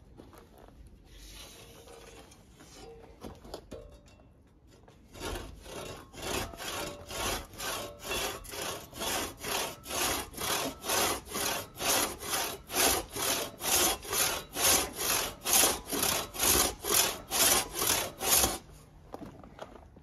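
Antique crosscut logging saw, its teeth unsharpened and a few missing, sawing through a log by hand. A few light strokes at first, then from about five seconds in a steady rhythm of about two strokes a second that grows louder and stops shortly before the end.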